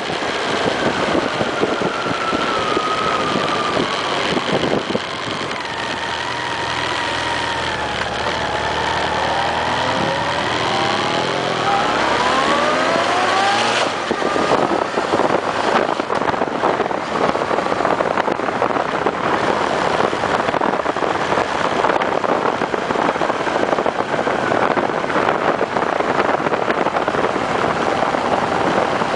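Honda CB1300's inline-four engine heard from the rider's seat on the move. Its pitch falls over the first few seconds as the bike slows, then climbs again as it accelerates. From about halfway, rushing wind on the microphone and engine noise take over.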